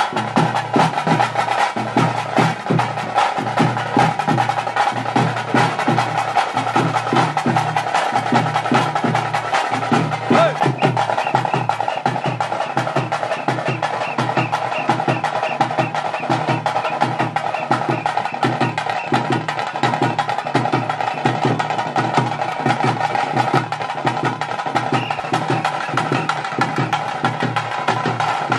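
Tase drums beaten with sticks in a fast, unbroken tiger-dance (pili nalike) rhythm, with a deeper drum thudding beneath.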